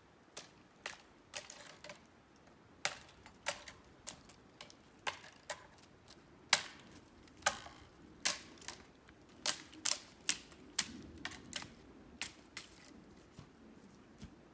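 Footsteps crunching on dry forest ground and twigs: irregular sharp clicks, about one or two a second.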